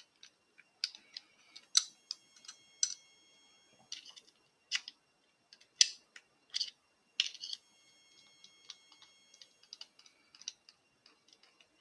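Irregular small metallic clicks and taps from a Mul-T-Lock Integrator padlock and its cylinder being handled and worked, several followed by a brief high metallic ring. The core is stuck in the lock body and will not come out.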